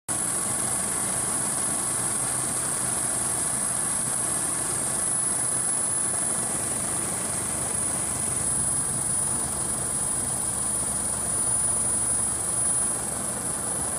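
Helicopter noise heard from the aircraft filming: a steady engine and rotor rumble with a thin, steady high-pitched whine over it.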